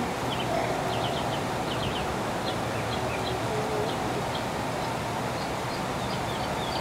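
Small birds chirping in short, scattered high notes over a steady background rush.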